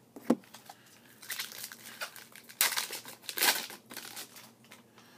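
Wrapper of a 2014 Topps Chrome football card pack being torn open and crinkled by hand: a sharp click just after the start, then a run of crackling rustles, loudest in the middle.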